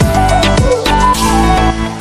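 Background music: an electronic track with a steady beat and deep bass notes that slide downward.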